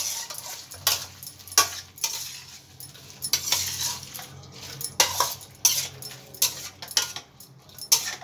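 A metal spoon clinking and scraping against a stainless steel plate as rice and curd are mixed, in irregular sharp clinks.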